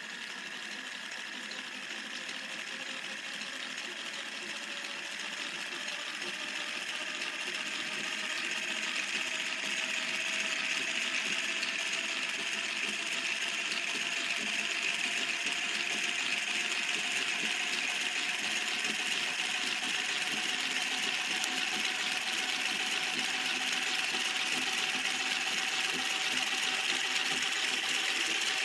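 Small electric motor and plastic gear train of a homemade centrifugal-drive model car whirring steadily, spinning its weighted discs. Its whine slowly rises in pitch and grows louder.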